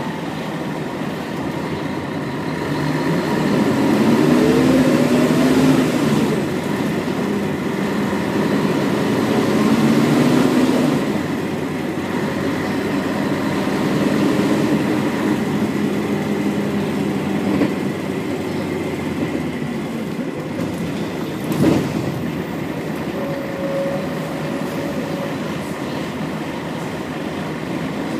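Scania L113CRL bus heard from inside the cabin: its 11.9-litre DSC11 diesel engine and ZF automatic gearbox pull hard twice with a rising whine, then ease off as the bus slows. A single sharp thump comes a little past two-thirds of the way through.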